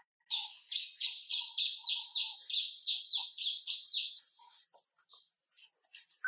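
Forest insects calling: a steady high-pitched buzz that starts suddenly, with a pulsing call of about three beats a second over it that stops about four seconds in. Faint soft pats of hands smoothing wet mud come and go underneath.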